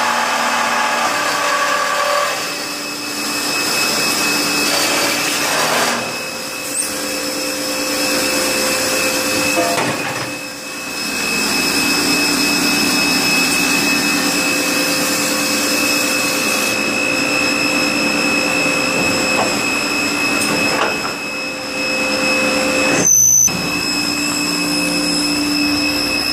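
Rüsch RDU302-600 automated sawing and drilling line with integrated band saw, running: a steady machine hum with high steady whines from its drives, shifting in pitch and level every few seconds, and one sharp clack near the end.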